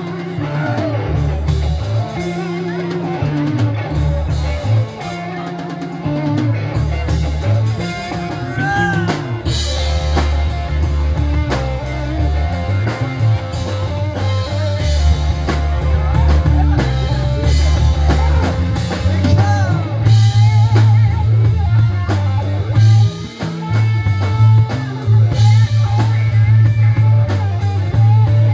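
Live rock trio playing: electric guitar, bass guitar and drum kit, with the bass and drums carrying a steady beat that gets louder about two-thirds of the way through.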